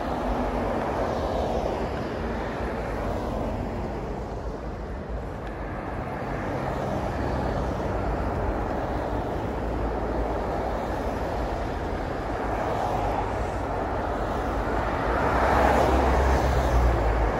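Road traffic on a multi-lane city street: cars driving past with a steady hiss of tyres and engine rumble that swells as each one nears. The loudest pass comes near the end.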